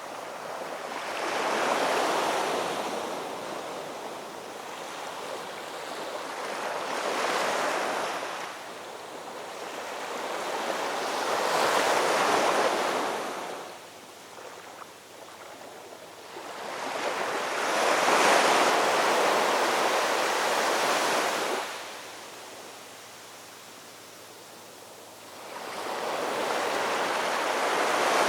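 Ocean waves breaking and washing in, a rushing surf that swells and falls away about every five seconds, with a quieter lull between the fourth and fifth waves.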